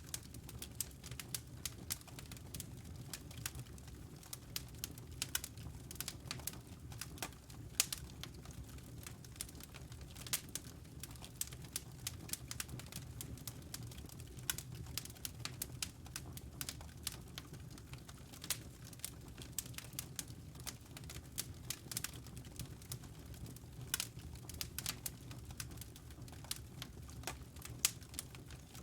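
Wood logs burning in a fireplace, crackling with many irregular sharp snaps and pops over a low steady rumble of the fire.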